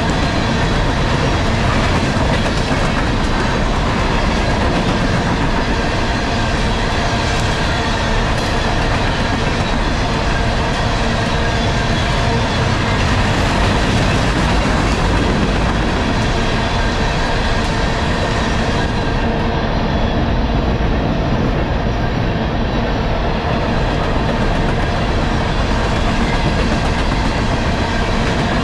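Empty coal train rolling steadily past: the wheels of the empty hopper cars rumbling and clattering on the rails.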